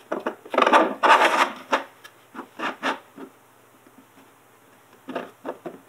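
Felt-tip squeegee rubbing over a wet vinyl decal on a hollow plastic RC truck body, pushing the water out from under the graphic. It goes in short strokes, the longest about a second in, then a quieter pause before a few more strokes near the end.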